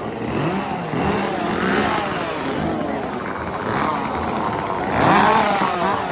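Chainsaw engine revving up and down over and over, loudest about five seconds in.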